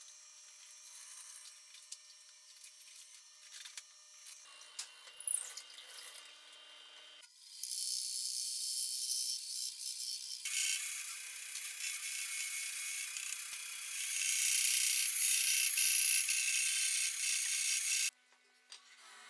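A drill press boring into a softwood block, fairly quiet. About a third of the way in it gives way to a louder bandsaw cutting through softwood with a steady hiss, which stops suddenly near the end.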